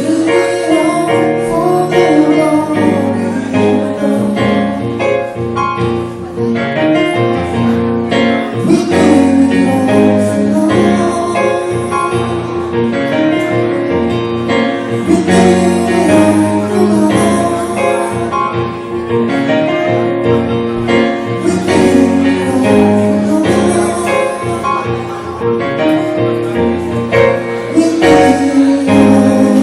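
Live acoustic music with a singer: steady accompaniment under a sung melody.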